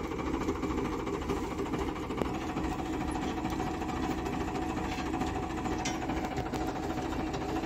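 Tractor engine running steadily at a low, even speed, powering a tractor-mounted boring rig. A few sharp clicks sound about six seconds in.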